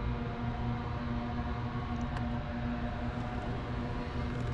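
Boat motor running with a steady hum. A faint tick sounds about two seconds in.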